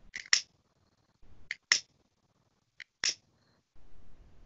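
Sharp clicks, mostly in close pairs: three pairs spaced a little over a second apart, then a single click near the end, with faint low noise between them.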